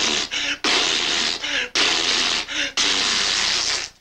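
A man making loud wordless noises with his mouth and voice, about five spluttering blurts in a row with short breaks, cut off sharply at the end.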